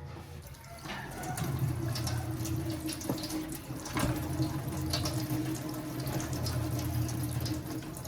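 Water running from a tap into a sink, getting stronger about a second in, with a couple of brief clinks.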